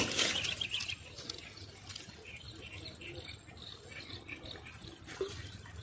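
Faint outdoor chirping of birds and insects, scattered short chirps over a thin steady high insect tone. A brief rustling noise comes in the first half second.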